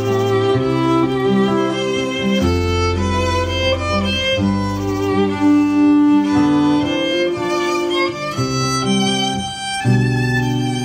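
Fiddle playing an instrumental solo break, a bowed melody over sustained lower accompanying notes.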